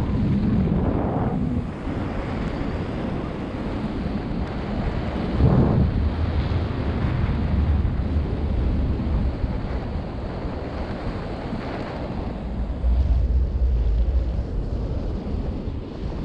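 Airflow buffeting the camera's microphone during paraglider flight: a steady wind rush with louder low gusts about five seconds in and again from about thirteen seconds.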